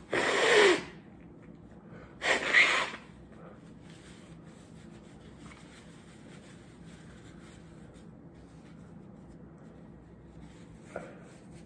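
Two nose blows into a paper tissue, each under a second long and about two seconds apart. The nose is running from the heat of an extremely hot chili snack.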